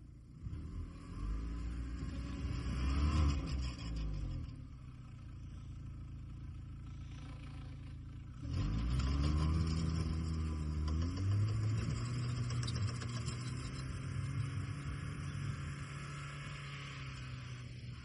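An engine revving up and falling back a couple of seconds in, revving hard again about eight seconds in, then running steadily and slowly fading.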